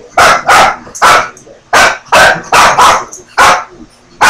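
A dog barking loudly and repeatedly: about eight sharp barks in quick, uneven succession.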